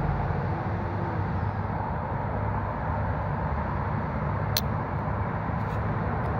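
Steady rumble of road traffic, with one sharp click about four and a half seconds in.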